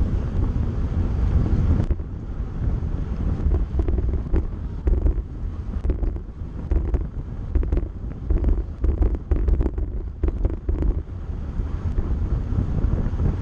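Wind buffeting the microphone of a camera riding on a road bike moving at about 37 km/h, a steady low rumble. From about three seconds in, a run of short sharp ticks and rattles comes through it, easing off near the end.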